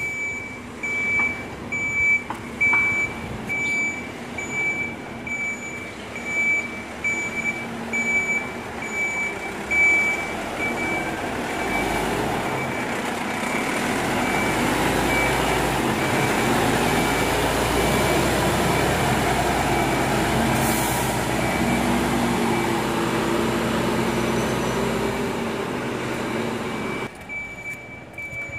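Volvo FE 300 recycling truck: a regular high-pitched warning beeper with irregular clanks for about the first ten seconds. Then the truck's diesel engine runs loud and steady until near the end, when the beeping returns.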